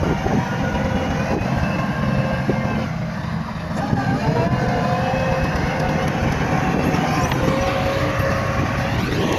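Bulldozer's diesel engine running steadily at work. A thin whining tone wavers above the rumble from about four seconds in and rises near the end.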